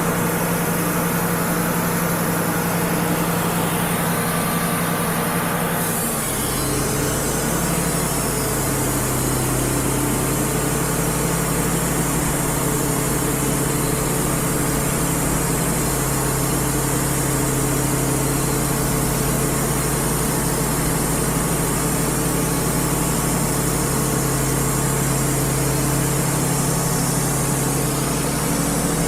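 Wood-Mizer LT35 HD portable sawmill running steadily, its engine driving the band blade through a red oak log. About six seconds in, the engine note drops lower and deepens, then holds steady.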